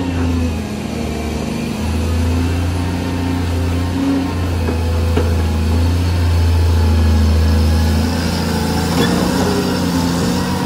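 Caterpillar 330D2 hydraulic excavator's diesel engine running under digging load as the bucket scoops and lifts soil, the engine note heaviest in the middle, with a few light knocks.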